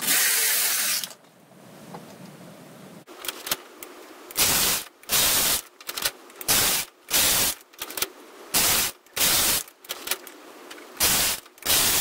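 Brother KH710 push-button knitting machine working: the carriage rasping over the metal needle bed in one pass at the start, then, from about four seconds in, a quick run of about a dozen short rasping clatters from the carriage and needles.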